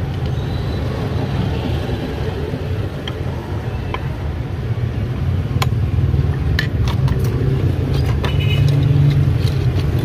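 Steady low rumble of a motor vehicle engine running close by, with scattered light metal clicks and taps from hand tools on a padlock, more of them in the second half.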